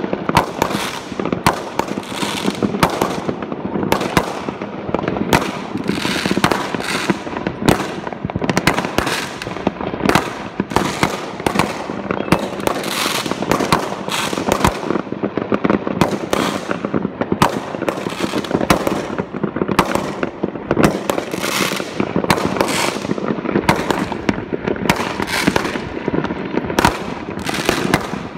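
Many fireworks going off at once: a dense, unbroken barrage of bangs and crackles overlapping one another, each bang trailing off in an echo.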